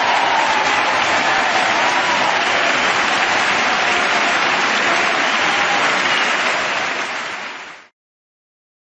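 A large crowd applauding steadily, fading away near the end and cutting off about eight seconds in.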